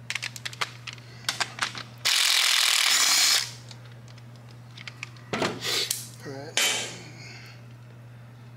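Ratchet clicking for about two seconds, then a cordless ratchet's motor running for about a second as it spins a cam-drive sprocket bolt out of a Harley-Davidson Twin Cam engine. A few metal clicks follow as the sprocket and chain are handled.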